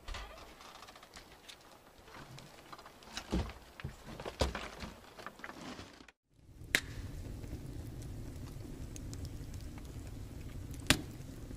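A few scattered knocks and rustles, then, after a short break, a wood fire burning with a steady low rush and an occasional sharp crackling pop.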